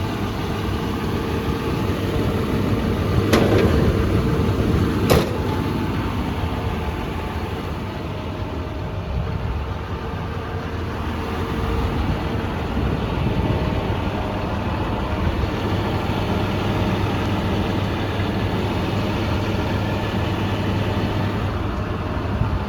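John Deere 210G LC excavator's diesel engine running steadily at idle, with two sharp clicks about three and five seconds in.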